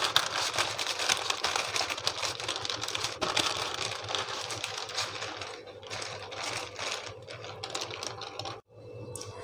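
Wooden rolling pin rolled back and forth over sheets of butter paper on a wooden board: a rapid, dense crackling and clicking of the paper. It thins out in the last few seconds and cuts out briefly near the end.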